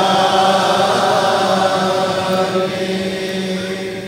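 Chaldean liturgical chant: a single sung note is held long and steady.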